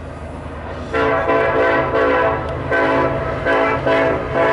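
Norfolk Southern diesel locomotive's air horn sounding several notes at once in a series of blasts, long and short, starting about a second in, over the low rumble of the approaching train.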